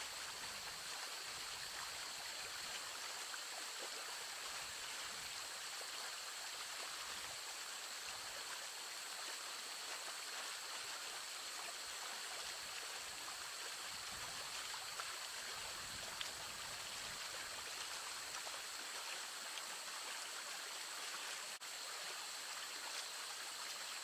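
Trout stream water running steadily, a soft even rush of flowing water. Two faint, steady high-pitched tones sit above it.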